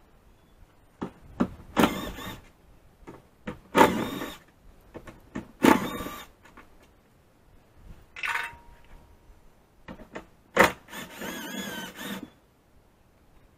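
Cordless power driver running in several short bursts, the last and longest near the end, backing out the 10 mm bolts that hold the liftgate lock actuator, with small clicks of the tool and socket between bursts.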